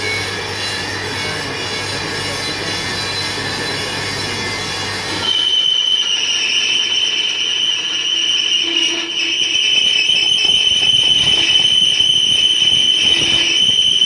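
Metal lathe turning a steel truck wheel rim, running with a steady mechanical noise. About five seconds in it gets louder as a steady high-pitched squeal of the cutting tool against the steel sets in and holds.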